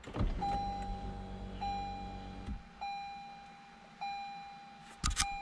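A 2019 Lexus ES350 F Sport powering up from its push-button start. A low mechanical hum runs for about two and a half seconds and cuts off sharply, while a cabin chime sounds about every second and a bit. A couple of clicks come near the end.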